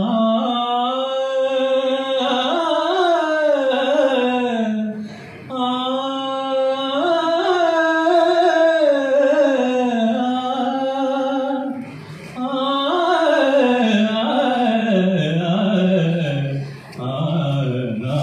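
A young man singing solo and unaccompanied into a microphone, amplified through the hall's sound system: long phrases of held notes with slow, ornamented slides in pitch, with short pauses for breath about five and twelve seconds in.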